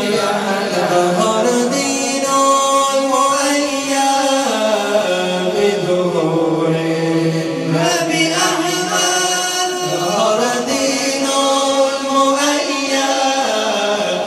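Two men singing a devotional nasheed together into handheld microphones, in long held notes that wind up and down in pitch.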